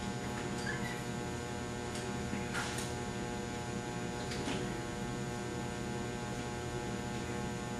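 Steady electrical mains hum with many overtones from a BlackHawk power supply cabinet, running while under a 6,000-volt output surge test, with a few faint clicks, the clearest about two and a half seconds in.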